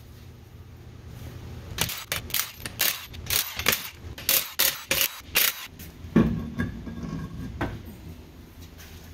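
Vehicle lift raising a Ford Transit van: its safety locks click sharply and irregularly for a few seconds over a low steady hum.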